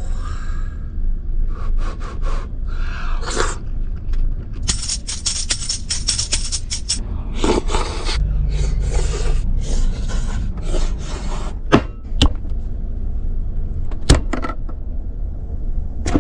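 Scraping and stirring of food in a bowl, in quick runs of short strokes with a few sharp clicks near the end, over a steady low hum.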